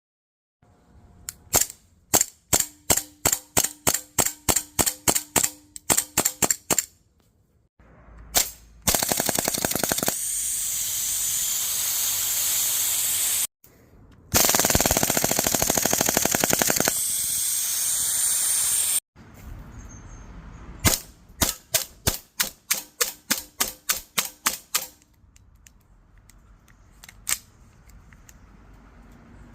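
Airsoft replica guns firing: a quick string of single shots, then two long full-auto bursts of several seconds each, then another string of single shots and a few scattered shots near the end.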